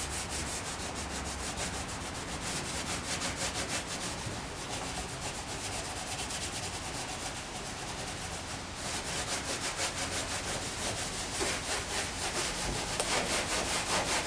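Sandpaper scrubbing the old painted steel of a 1959 VW Type 2 single-cab bus in rapid, even strokes, taking the paint down to lettering beneath, with a brief break about two-thirds of the way in.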